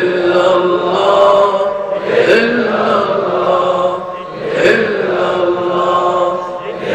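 Men's voices chanting dhikr together, a short devotional phrase on a held tone that starts again about every two and a quarter seconds.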